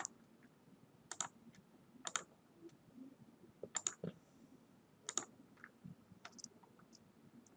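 Faint clicks of a computer mouse, sharp single clicks and quick pairs about once a second.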